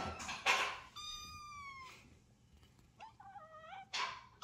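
Young kittens meowing. About a second in there is one long, high meow that falls slightly. Near the end comes a shorter, lower mew that steps down in pitch. A brief noisy burst just before the first meow is the loudest sound.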